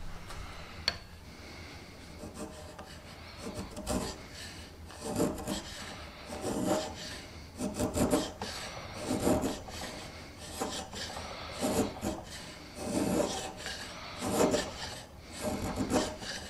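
A homemade, gently curved Japanese Saya chisel paring a block of padauk by hand: about ten scraping strokes, roughly one a second, each taking off a shaving. The strokes begin a few seconds in.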